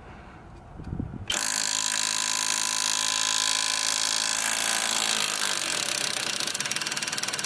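Cordless impact wrench on its highest setting hammering on a rusted lower control arm bolt, starting about a second in and running steadily for several seconds as it works the bolt loose.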